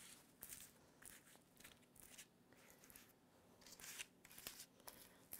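Faint scraping and crunching of a spatula spreading caramel-coated popcorn over a parchment-lined baking sheet, in short, irregular strokes.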